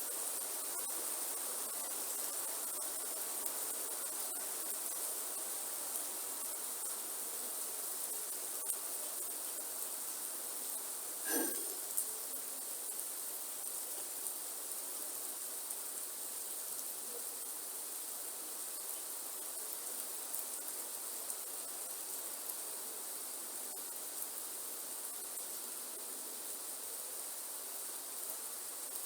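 Steady rainforest rain with scattered drop ticks, under a constant high-pitched insect drone. A short, louder sound cuts in briefly about eleven seconds in.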